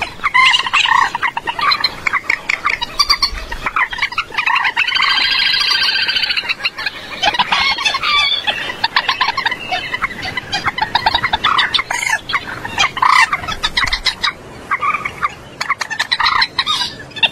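Common moorhen calling: a fast, irregular series of short croaking and clucking notes, with one longer, drawn-out call about five seconds in.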